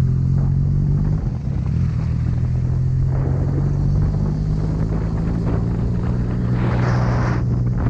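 Yamaha MT-09's inline three-cylinder engine running steadily, its pitch shifting about a second in, with a brief rush of hiss near the end.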